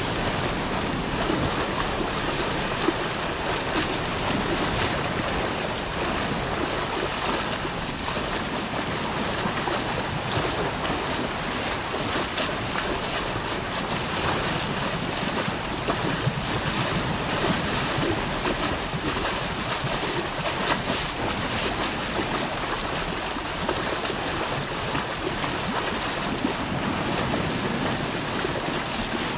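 River water pouring over a weir, a steady, even rush of white water with no letup.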